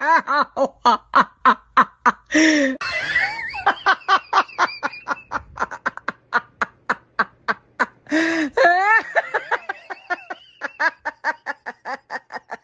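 A woman's crazy, exaggerated cackling laughter: a rapid run of short ha-ha pulses, about five a second, broken twice by longer high squeals, cutting off abruptly at the end.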